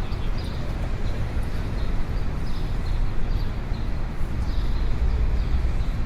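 City street ambience: a steady low rumble of traffic, with faint short high-pitched sounds now and then.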